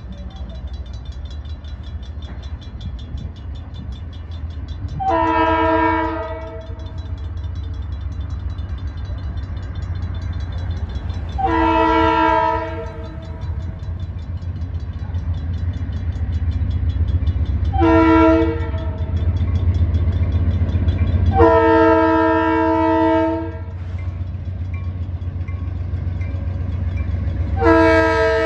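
A freight locomotive's Leslie RS-3L three-chime horn sounds the grade-crossing signal, long, long, short, long, and starts another long blast near the end. Under it a crossing bell rings rapidly and the approaching train rumbles low and steadily.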